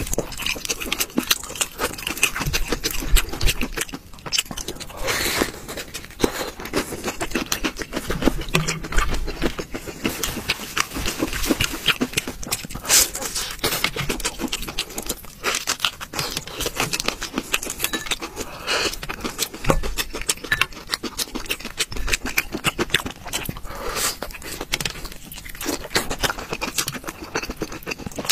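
Close-up eating sounds: crisp crunching, biting and chewing of fried breaded food, a dense, irregular run of crackles.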